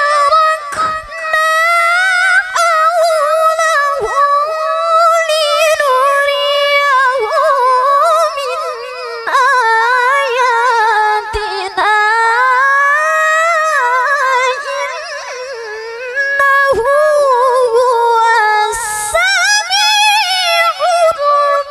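A woman reciting the Quran in the melodic tilawah style into a microphone: long, high, held phrases with wavering ornaments, broken by a few short pauses for breath.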